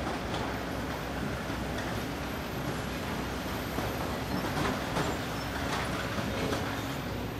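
Diesel engines of Kobelco SK200 hydraulic excavators running steadily under digging load, with a few faint knocks of buckets working sand and rock.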